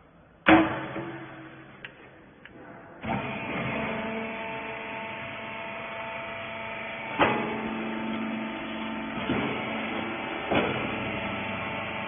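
A loud metal bang about half a second in as the feed-chamber lid of a horizontal wiper bagging baler is shut. About three seconds in, the baler's electric motor and hydraulic pump start and run with a steady hum, with three clunks as the cylinders compress the rags and push the bale out into the bag.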